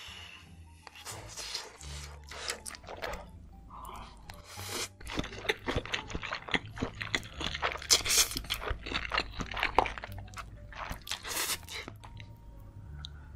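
Close-miked noodle slurping and wet chewing: a rapid run of slurps, smacks and mouth clicks, loudest about eight and ten seconds in.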